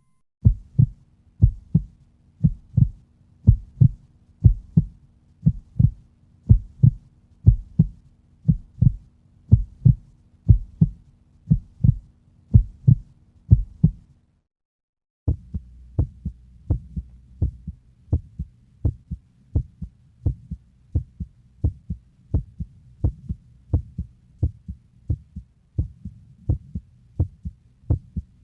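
Heartbeat sound effect: paired lub-dub thumps in a steady rhythm. They stop for about a second about halfway through, then resume at a somewhat quicker pace.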